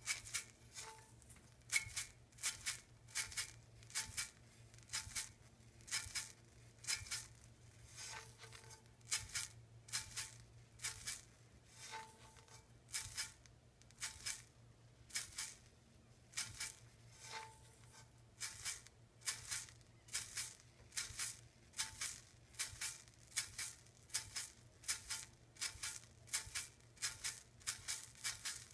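Shaker rattled in a steady rhythm, crisp short strokes about two a second in small groups, with a few faint soft tones under it: the sound effect for a rolling tomato.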